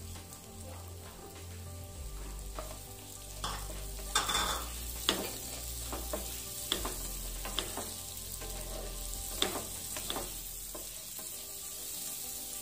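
Sliced onions sizzling in butter and oil in a non-stick kadhai, stirred with a wooden spatula that scrapes and knocks against the pan every second or so, loudest about four seconds in.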